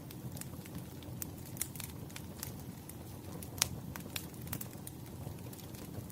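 Wood fire crackling: irregular sharp pops and snaps over a low steady rumble, with one louder pop about three and a half seconds in.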